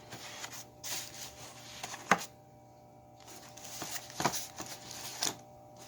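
A firework box being handled and its cover worked back on: rustling and rubbing with a few sharp taps and clicks, the sharpest about two seconds in.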